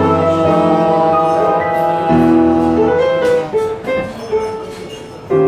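Live piano closing a French chanson: sustained chords for about three seconds, then a few quieter struck notes dying away, and a last chord near the end.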